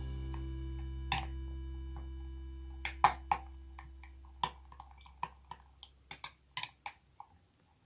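A spoon clinking and tapping against a glass jar while stirring a liquid mixture: a scatter of sharp irregular ticks that come thicker from about three seconds in. A held background music chord fades out over the first half.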